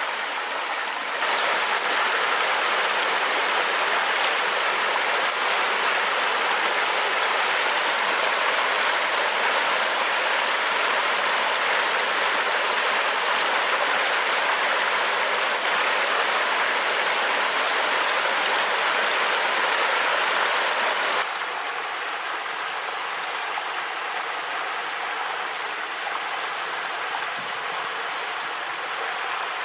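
Creek water rushing steadily. The sound jumps louder about a second in and drops back near the last third, abrupt changes where the recording cuts between spots along the creek.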